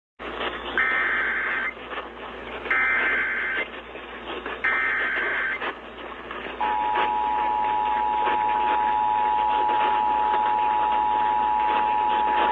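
Emergency Alert System broadcast heard through radio hiss. Three bursts of about a second each of the shrill SAME header data tones open a new alert. About six and a half seconds in, the steady two-tone EAS attention signal begins and holds.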